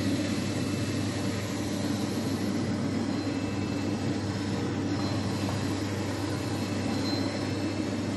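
Automatic pocket welting sewing machine running steadily with a continuous mechanical hum.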